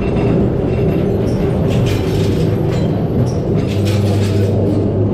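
Ghost train dark-ride car rolling along its track: a steady low rumble with irregular clacks and rattles.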